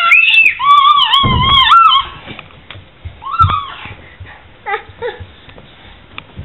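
A baby squealing in high-pitched, wavering cries for about two seconds, then shorter squeals about three and a half and five seconds in.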